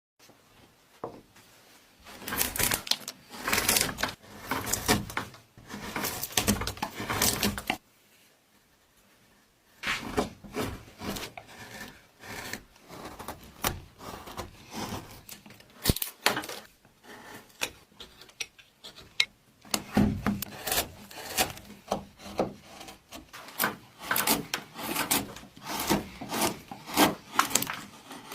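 Hand woodworking on a piece of wood: runs of rasping, rubbing strokes, a short pause about eight seconds in, then quicker, shorter strokes mixed with light knocks.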